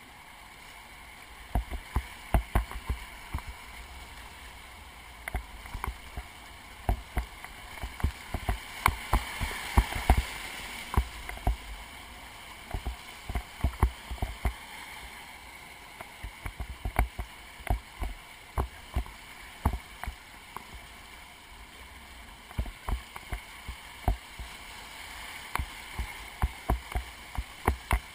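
Whitewater rapid rushing under a kayak, loudest about a third of the way through, with frequent sharp knocks and slaps of water and paddle against the boat close to the camera.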